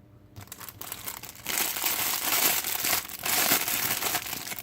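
Plastic packaging crinkling as it is handled and opened, faint at first and loud from about a second and a half in.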